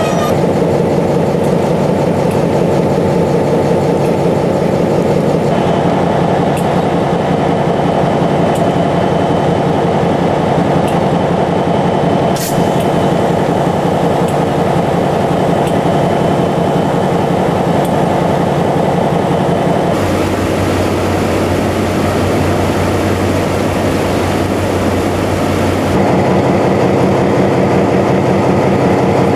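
EMD SW1500 switcher locomotive's diesel engine idling steadily, with an even, rapid pulse. The tone shifts slightly about twenty seconds in and again a few seconds before the end.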